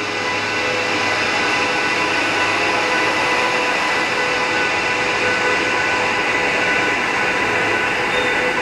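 Electric-hauled City Night Line passenger train pulling out of the station: a steady rumble of wheels on rail with a steady whine of several tones from the electric locomotive, echoing in the underground station hall.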